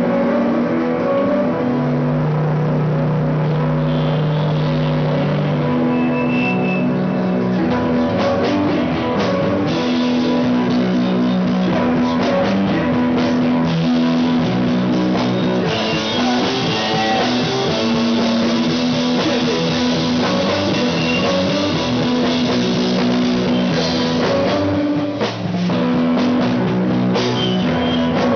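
Rock band playing live: electric guitar and drum kit, loud and continuous.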